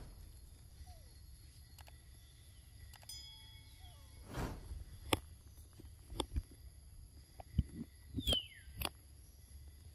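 Quiet outdoor ambience: a steady high-pitched tone, a few short falling whistled calls and scattered soft clicks and taps.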